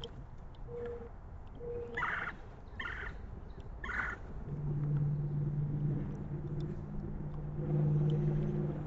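Three harsh bird calls about a second apart, after a low hooting note repeated about once a second. From about halfway a steady low motor drone comes in and holds.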